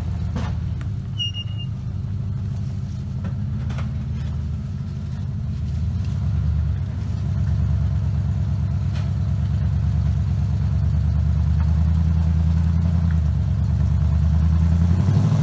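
Ford Bronco rock crawler's engine running at low revs as the truck crawls up a rock ledge, getting louder about six seconds in and then holding steady. A few light knocks are heard along with it.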